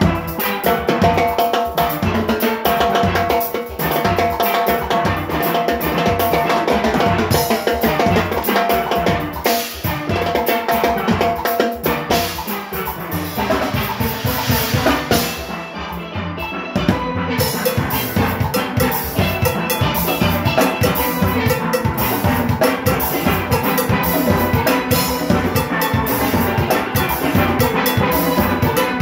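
Steel band playing live: steel pans ring out melody and chords over the engine room's drum kit, timbales and cymbals, which drive a fast, dense rhythm. The cymbal shimmer drops out for about a second just past the middle.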